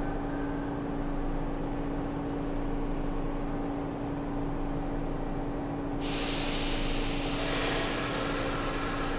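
A New York City subway train stands in the station with a steady hum. About six seconds in, its air brakes let out a sudden loud hiss of compressed air that keeps going.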